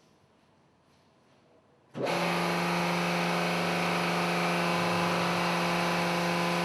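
The JKL500 hose crimper's 5.5 kW three-phase electric motor and hydraulic pump switching on about two seconds in and running with a steady, loud hum.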